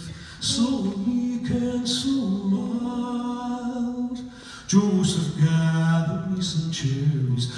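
A man singing a slow carol live in two long, held phrases, with a short breath between them about four seconds in.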